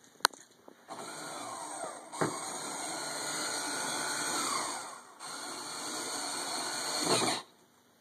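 Small electric motor whirring for about six seconds, dropping out briefly near the middle and cutting off sharply near the end, with a click about two seconds in.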